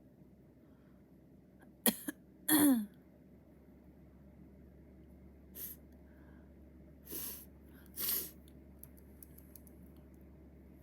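A person sneezes once: a sharp catch about two seconds in, then a loud voiced burst that falls in pitch. Three shorter, fainter breath sounds follow.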